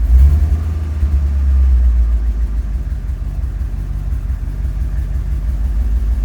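Ford F-250's gasoline engine running, swelling briefly in the first couple of seconds and then settling to a steady low hum. The engine has freshly re-gapped spark plugs and has been misfiring.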